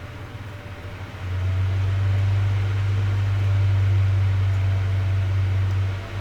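Graphics card cooling fans running with a steady whir, hiss and low hum, which steps up louder about a second in.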